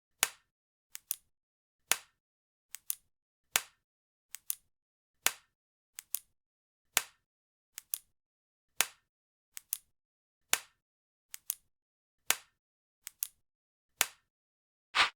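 Sharp clicks repeating in a steady rhythm over dead silence: one loud click followed by a softer double click, the pattern coming round about every 1.75 seconds. Near the end a fuller, longer burst replaces the pattern.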